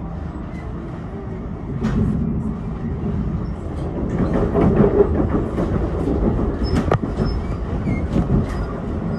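Train running on the rails: a steady low rumble that swells around the middle, with a few sharp wheel clacks.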